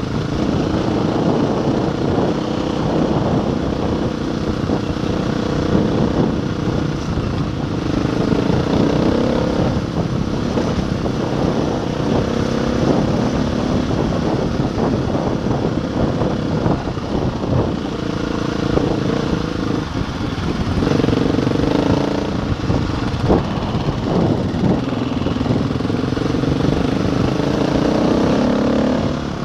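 Enduro motorcycle engine running under way, its pitch rising and dropping several times as the throttle and gears change.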